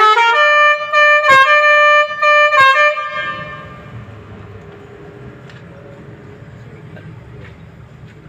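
Pakistani-style telolet bus horn playing a short tune: a few held notes with brief breaks, lasting about three seconds, then cutting off to a low background rumble.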